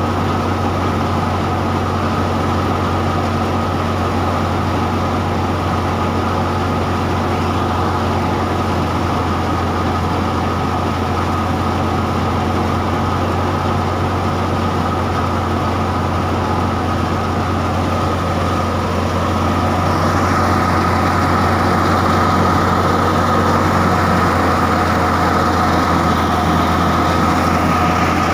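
Tractor-driven wheat thresher running steadily under load, the New Holland tractor's engine and the spinning thresher drum and blower making one continuous drone with a steady high whine. It grows slightly louder about two-thirds of the way in.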